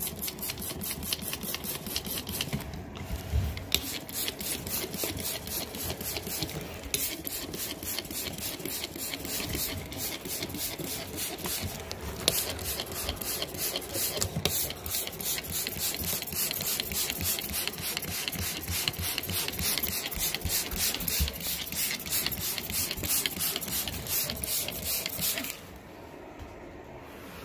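A brush scrubbing carpet pile in fast, even strokes, about eight a second, working cleaner into stains. It pauses briefly twice and stops near the end.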